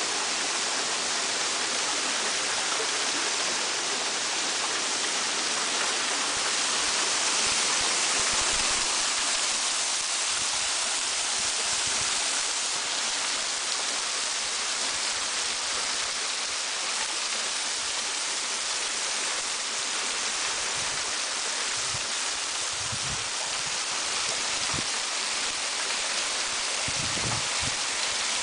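Waterfall: a steady, continuous hiss of falling water.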